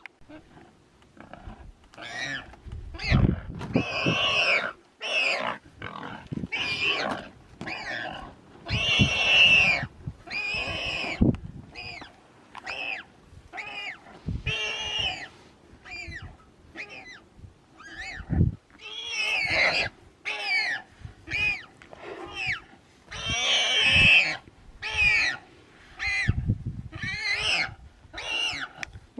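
Warthog squealing in distress, over and over, as a lioness holds it by the throat. The high, harsh squeals come one or two a second, some short and some drawn out.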